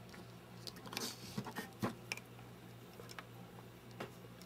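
Light clicks and a brief rustle of hands handling the ESR meter's test probe leads, over a faint low steady hum.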